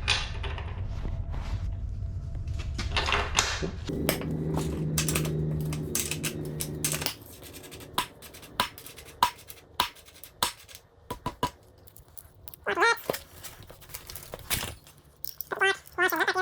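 Hand tools working on a motocross bike's rear wheel: a steady low hum for the first several seconds, then a run of separate metallic clicks and knocks as a breaker bar and socket are used on the axle nut.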